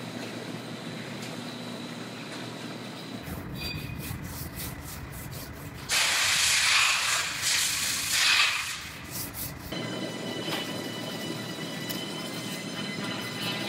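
Masking tape pulled off its roll: a loud tearing sound lasting about two and a half seconds, starting suddenly about halfway through, over a steady low shop background.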